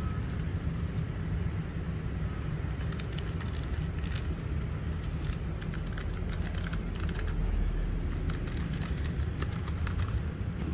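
Typing on a Logitech G913 TKL wireless mechanical keyboard with low-profile GL Clicky switches: quick runs of sharp clicky keystrokes that start about three seconds in, over a steady low rumble.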